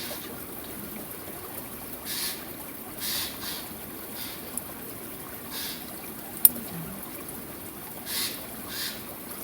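Soup bubbling in a pot on a strong flame: soft, irregular bubbling puffs over a steady rushing background, with one sharp click about six and a half seconds in.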